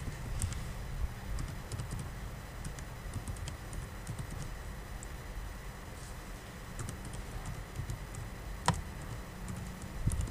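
Computer keyboard keys clicking irregularly as text is typed, with one sharper click near the end, over a steady low hum.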